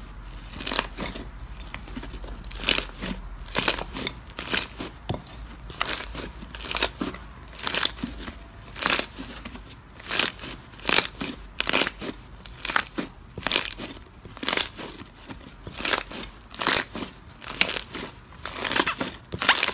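Fluffy slime being squeezed and kneaded by hand, each squeeze giving a brief sharp squish, about three every two seconds in a steady rhythm.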